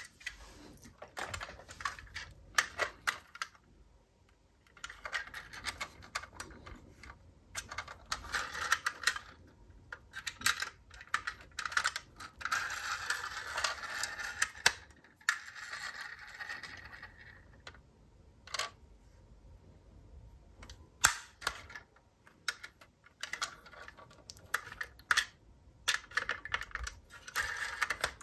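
Small die-cast toy cars being handled: sharp, irregular clicks and taps of metal and plastic knocking together and against a hard surface, with a few longer stretches of rattling near the middle.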